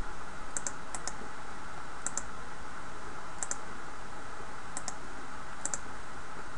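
Computer mouse buttons clicking about six times, each click a quick double tick of press and release, spaced irregularly over a steady background hiss.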